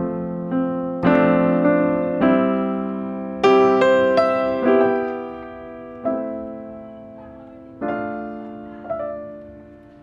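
Background piano music: slow single notes and chords, each struck and left to fade before the next.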